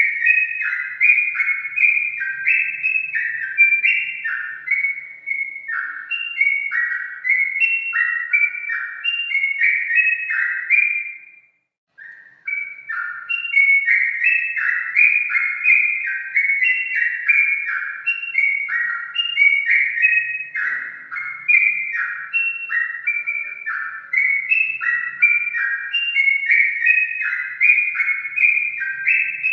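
Sooty-headed bulbul singing: a continuous stream of short, liquid whistled notes gliding up and down, breaking off for about half a second about eleven seconds in.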